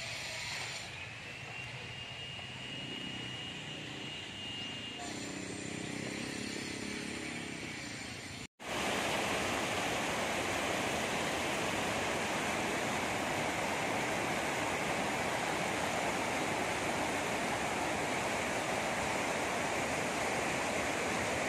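Quiet outdoor ambience, then after a sudden cut about eight seconds in, a shallow river rushing steadily over rocks below a low weir.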